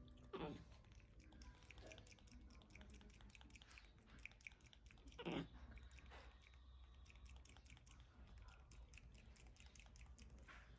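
Near silence with faint soft smacking and clicking mouth sounds from a capuchin monkey grooming a baby monkey, broken by two brief falling squeaks, one about half a second in and one about five seconds in.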